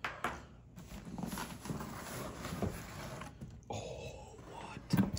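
A cardboard box being opened and its packaging handled: irregular rustling and scraping of cardboard and plastic wrap, with a sharp knock near the end.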